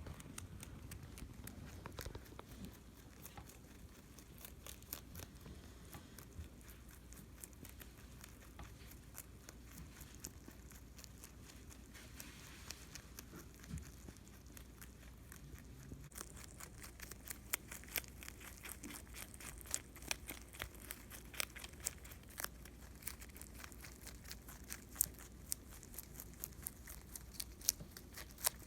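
A rabbit chewing her food: rapid, fine crunching clicks, getting busier and louder about halfway through.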